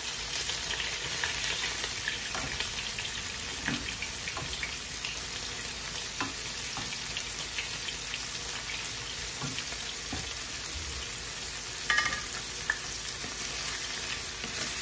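Eggplant frying in oil in a skillet on a gas stove: a steady sizzle and crackle, with small clicks of metal tongs against the pan as the pieces are turned. There are a couple of sharper clinks about twelve seconds in.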